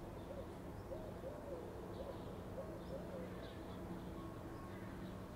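Doves cooing in a run of short rising-and-falling calls that stop about three seconds in, with faint high chirps of small birds over a low steady city hum.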